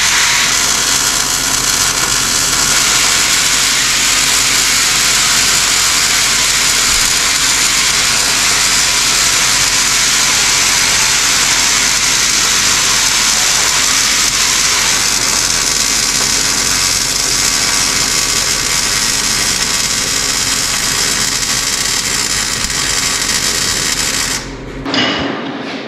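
A power tool running steadily on metal with a strong hiss, cutting off suddenly about a second before the end.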